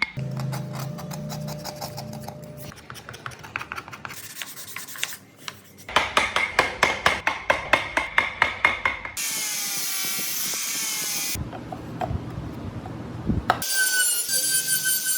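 Hand tools working wood: rapid rasping and scraping strokes, in short segments that cut off abruptly. A small power tool whines steadily in between and near the end.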